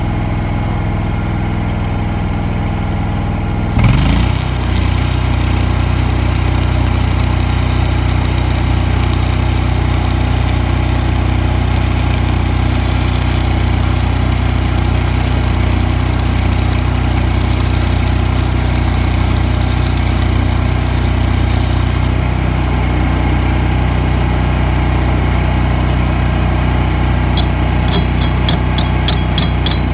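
Hobart Champion Elite engine-driven welder's engine running steadily. About four seconds in, a 6010 stick-welding arc is struck and crackles and hisses for about eighteen seconds as the engine takes up the load, then the arc stops while the engine keeps running. Near the end comes a quick run of light metallic clinks.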